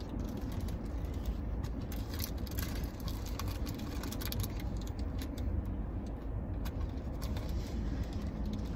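A man chewing a mouthful of veggie burger, with short clicks and crinkles from the burger's paper wrapper, over a steady low rumble inside the car.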